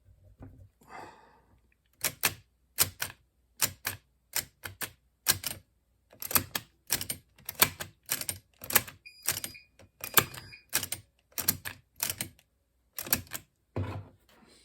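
A long run of sharp mechanical clicks and clacks, many in quick pairs at about two to three a second, starting about two seconds in: the sticking eject mechanism of a Macintosh 128K external floppy drive being worked by hand while it is cleaned of old, gummed-up grease.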